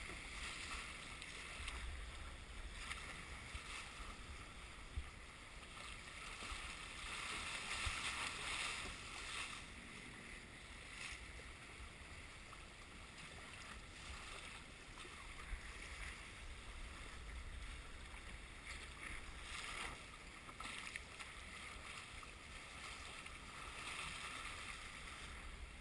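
Water rushing along a sailboat's hull as it sails, a steady rushing noise with low rumble that swells and eases every few seconds. One sharp tick about five seconds in.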